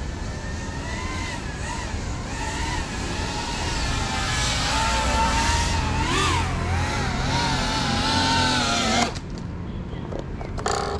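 Whine of a GEPRC Cinelog35 cinewhoop drone's motors and propellers in flight, the pitch wavering up and down with the throttle and growing louder about four seconds in. It cuts off suddenly about nine seconds in as the motors stop, leaving a few faint clicks.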